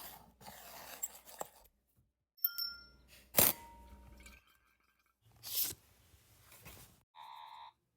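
A string of short foley sound effects one after another: rustling noise, a ringing clink, a sharp hit, a burst of hiss and a short buzzing tone near the end.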